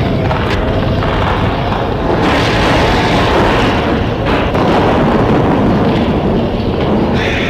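Loud, steady rumbling noise, a sound effect in the storybook audio, swelling about two seconds in.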